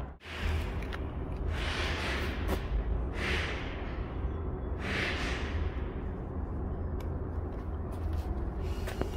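Semi truck driving: a steady low engine and road rumble, with four short hissing whooshes about a second and a half apart in the first half.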